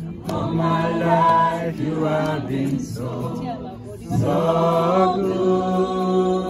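Voices singing a worship song, in two long phrases with held notes; the second phrase begins about four seconds in.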